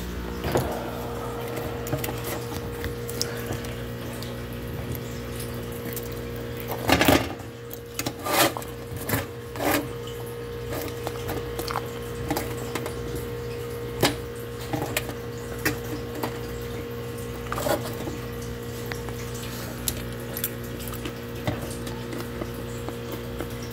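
Scattered clicks and scrapes of a metal fork against a foil-lined pizza pan, with a cluster of louder knocks about seven to ten seconds in, over a steady low electrical hum.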